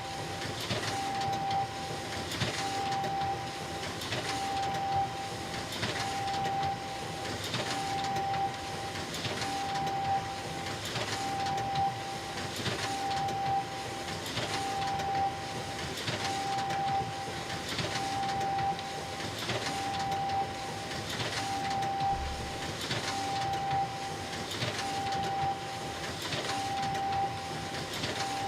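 Copy machine running in a steady repeating cycle: a hum with a mechanical swish and clatter about every second and three quarters.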